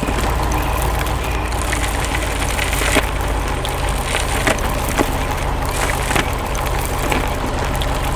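Steady low engine rumble of heavy construction machinery, with sharp cracking and splintering sounds breaking in every second or so.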